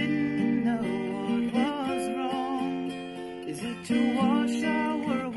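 Acoustic guitar strummed and picked, with a woman's voice singing a wavering melody over it.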